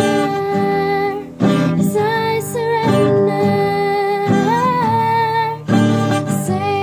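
A woman singing long held notes, one with a wavering pitch about halfway through, while strumming an acoustic guitar.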